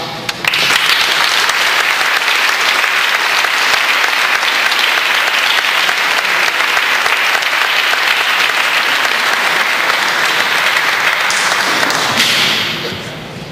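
Audience applauding steadily for about twelve seconds, dying away near the end.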